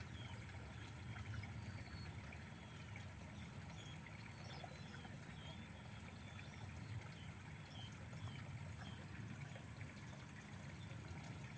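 Faint outdoor ambience: a low wind rumble on the microphone, a steady thin high whine, and scattered small chirps.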